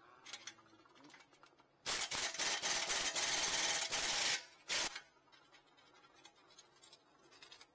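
Cordless impact wrench with a short 19 mm socket hammering on a front brake caliper bracket bolt for about two and a half seconds, then a short second burst, loosening the bolt.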